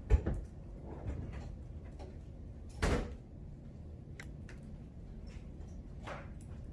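A few separate knocks and clunks over a low steady background: a sharp knock right at the start, a softer one about a second in, a louder clunk near three seconds, and a faint one near six seconds, like a car door or latch being handled.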